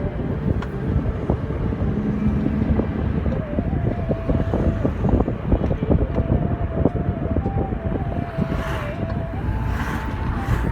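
Car driving along a road: steady engine and road noise, with many small knocks and a faint wavering tone above it.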